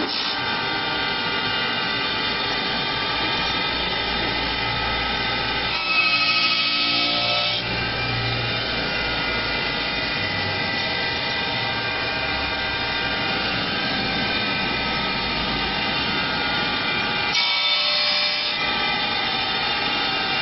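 Four-tool CNC wood lathe running steadily as its motor-driven cutter and sanding heads machine a curved wooden leg, a continuous whine over dense cutting noise. It changes and grows briefly louder twice, about six seconds in and near the end.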